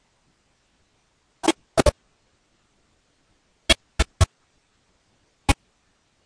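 Seven sharp computer mouse clicks in small groups: a single click, then a quick pair just before two seconds in, three close together around four seconds in, and a last one near the end.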